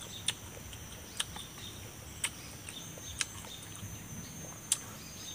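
Close chewing of raw green papaya: five short, sharp, crisp crunches or mouth clicks, about one a second. A steady high insect drone runs underneath.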